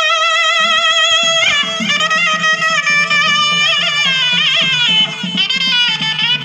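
Instrumental break in a Tamil folk devotional song: a reed wind instrument plays a wavering, ornamented melody over a steady drum beat.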